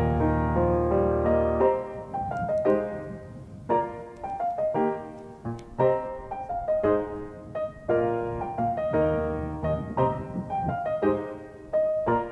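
Background music: a piano playing a gentle melody over chords, a new note or chord about every half second to second.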